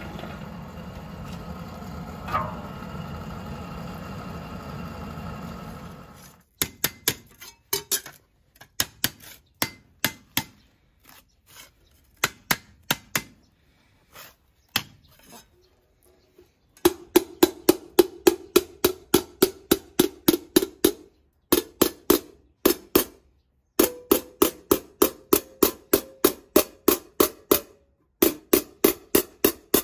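Hot copper quenched in a bucket of water, hissing and bubbling for about six seconds. Then a domed hammer strikes a copper disc laid over a steel bearing ring, dishing it to begin forming a pot: a few spaced blows at first, then fast, regular ringing blows at about three a second.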